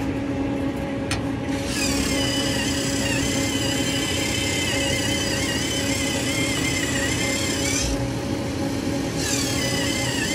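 Soda vending machine's vend motor running in its service-mode test, a whine with a wavering pitch that starts about two seconds in, stops briefly near eight seconds and starts again about a second later, over a steady low hum from the machine.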